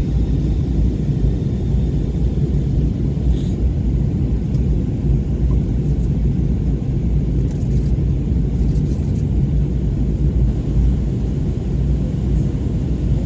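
Steady low rumble of an airliner heard from inside the cabin: engine and airflow noise, with a few faint ticks.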